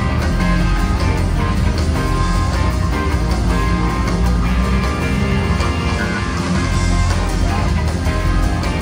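Live rock band playing loudly through a concert PA, with guitar to the fore over drums and a heavy bass end, recorded from among the audience.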